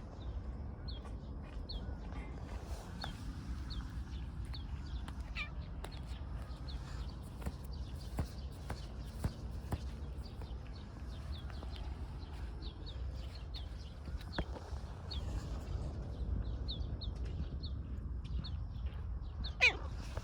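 Outdoor ambience: small birds chirping again and again over a low steady rumble, with a few clicks. Near the end comes one short, louder call that slides down in pitch.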